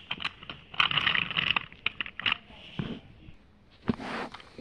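Scrapes, clicks and rattles of a small die-cast toy train and its coaches being pushed along plastic toy track, with a sharp knock about four seconds in.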